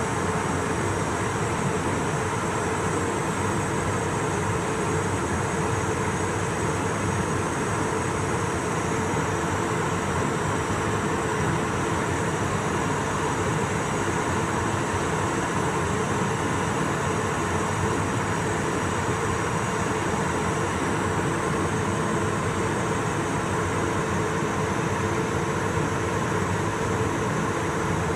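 Steady flight-deck noise of a jet aircraft in cruise at 35,000 ft: an even rush of airflow and air conditioning with a few faint steady hums.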